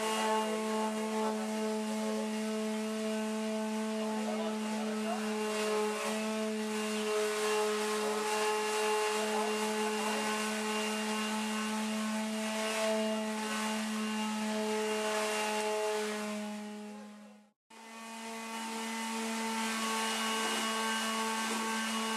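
Electric motor of a workshop power tool running steadily with an even, constant-pitched whine over a hiss. About 16 seconds in it fades out to silence for a moment, then fades back in unchanged.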